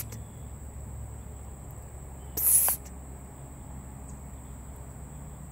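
Quiet outdoor ambience: a steady high-pitched insect drone over a low rumble, with one short breathy hiss about two and a half seconds in.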